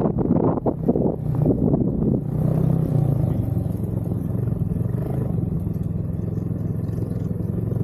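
Snowmobile engine running at a steady speed, its drone holding level after a rough, rushing noise in the first two seconds.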